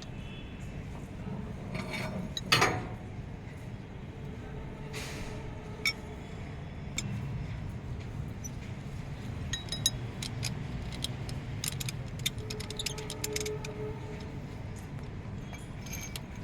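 Metal tools and engine parts clinking and tapping, in scattered light clinks over a steady low hum. One loud downward-sweeping sound comes about two and a half seconds in. The clinks come thicker in the second half.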